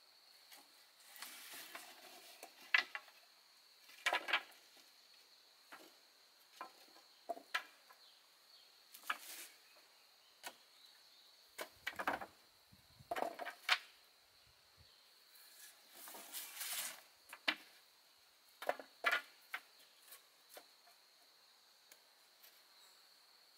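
Irregular knocks and short clatters of wooden pieces being handled and set down, over a steady high chirring of insects.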